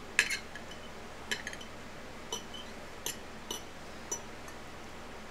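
Cutlery clinking against a plate, about six short clinks with a brief ring, the first the loudest.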